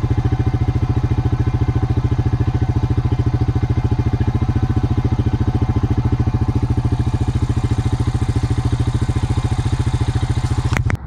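ATV engine idling with a steady, even pulse, then shutting off abruptly near the end.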